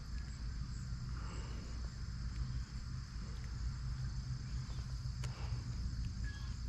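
Steady high insect chirring, like crickets, over a low steady rumble, with one faint click about five seconds in.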